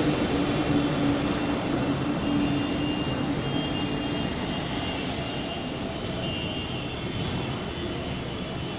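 Yellow EMU local train running away down the line, a steady rumble that slowly fades. A low steady hum in it stops about three and a half seconds in.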